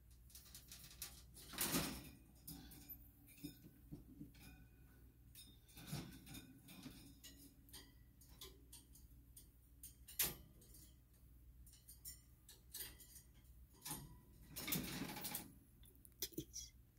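A small pet's claws clicking and scrabbling on a metal wire cage as it climbs the bars, with scattered light clicks and rattles. There is a louder rattling scrape about two seconds in, a sharp knock about ten seconds in, and a longer rustle near the end.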